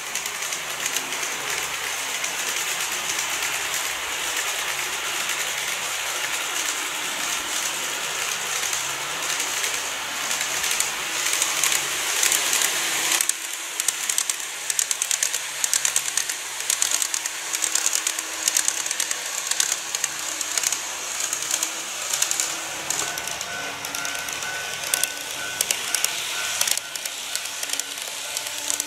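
N-gauge model trains running on track: a steady whirring hiss with fast, dense clicking of the small wheels over the rail joints. The sound shifts abruptly once midway and again near the end.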